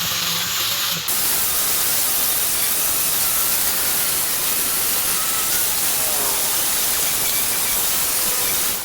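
A loud, steady hiss that starts abruptly about a second in.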